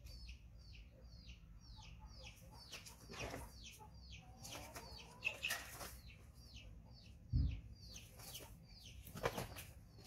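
High peeping calls repeat steadily, about three a second, each a short downward sweep. A few scuffs and knocks break in as monkeys scamper on the floor mats, and the loudest is a dull thump about seven seconds in.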